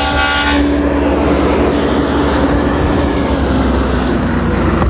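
Table saw with a dado blade cutting a rabbet along the edge of a plywood panel. The motor's whine gives way about half a second in to a loud, rough cutting noise as the wood is fed through, easing near the end.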